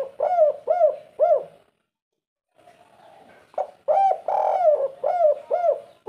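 Spotted dove cooing. First come the last three short, arched 'kuk' notes of one phrase. After about a second of silence, a full phrase follows: a short note, a longer drawn-out coo, and three short 'kuk' notes, the 'kuk 3' ending of the spotted dove's song.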